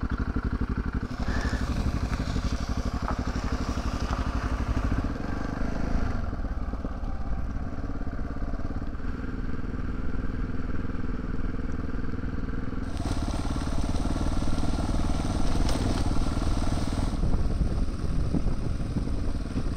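Adventure motorcycle's engine running at a steady pace while riding on a wet gravel road, with tyre crunch on the gravel. A louder rushing hiss comes in for a few seconds past the middle.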